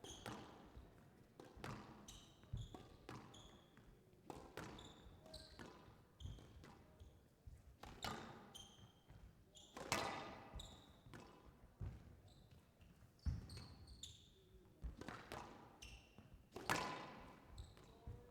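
Squash rally: the ball cracking off rackets and the court walls at irregular intervals, a few strikes much louder than the rest, with short squeaks of players' court shoes on the floor in between.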